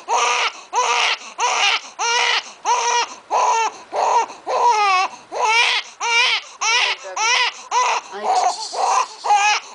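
Young infant crying in short, repeated wails, about two a second, with brief catches of breath between them.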